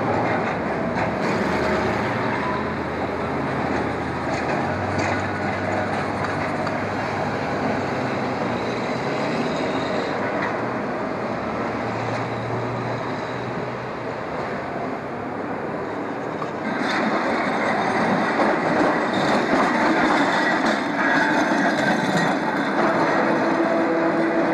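Vintage electric streetcars running on street track: a steady rumble and clatter of steel wheels on the rails. About two-thirds of the way in the running sound turns louder, with a steady hum over the rumble.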